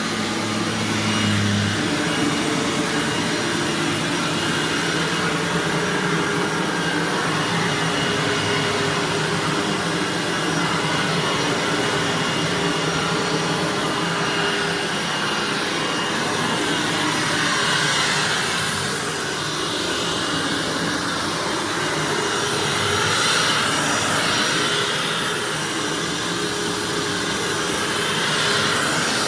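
Bagged self-propelled Hoover WindTunnel upright vacuum running steadily while being pushed over carpet, its height set on high and its self-propel drive engaged. The airflow sound shifts a little in pitch partway through.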